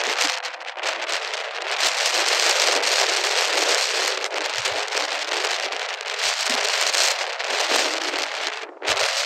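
Ocean surf breaking and spraying on lava rock, a steady crackling hiss that drops away briefly near the end.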